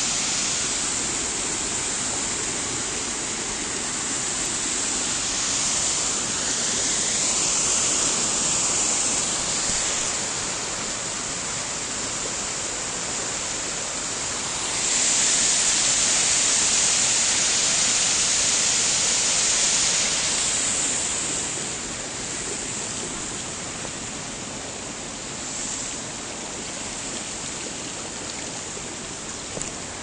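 Small waterfall pouring over a ledge onto rocks: a steady rushing of falling water, louder for several seconds about halfway through, then a little quieter.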